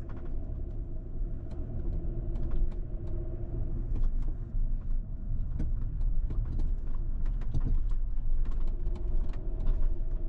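A car driving, with a steady low engine and road rumble, a faint held hum over it, and scattered light clicks and ticks.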